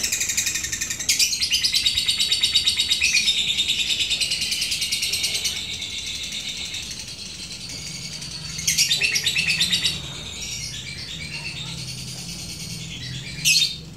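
Caged lovebirds singing the long, fast, high rattling trill that keepers call "ngekek": one run of about four and a half seconds starting about a second in, a shorter run of about a second later on, and a brief burst near the end.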